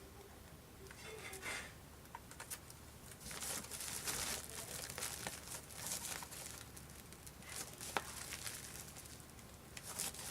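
Plastic packaging crinkling and rustling as it is handled, in irregular bursts, with one sharp click about eight seconds in.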